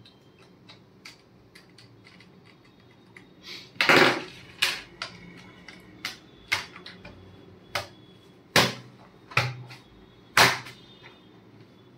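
Irregular sharp plastic clicks and snaps as a laptop's bottom access cover is fitted onto the base and pressed down so its clips catch, with lighter taps of the tool and parts in between. The loudest snaps come about four seconds in and again a few times in the second half.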